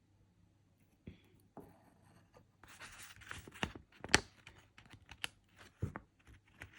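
Stickers and their paper backing being handled up close: peeling, rustling and light taps, starting about a second in, with one sharper tap a little after the middle.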